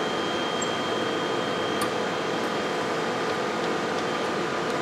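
Steady machine hum with a few faint steady tones, from a running HPLC pump and lab ventilation; a faint tick about two seconds in.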